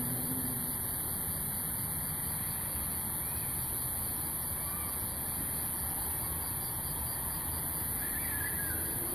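Steady rumbling hiss of background noise, with a few faint short tones rising out of it about eight seconds in.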